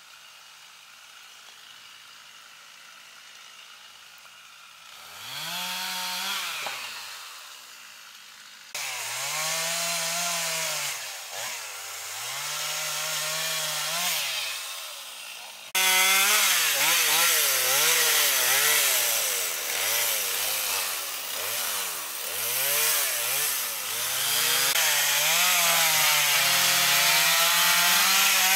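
Gas chainsaw cutting through the trunk of a fallen tree, its engine pitch rising and falling again and again as it is revved and dragged down in the cut. The first few seconds hold only a faint steady hiss. The saw comes in about five seconds in and gets louder in two sudden steps.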